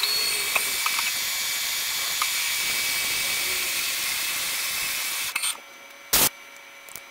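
Milling machine face-milling a metal plate under a coolant spray: a steady hissing run with a few faint ticks, which cuts off abruptly about five and a half seconds in. A short, loud burst of noise follows about a second later.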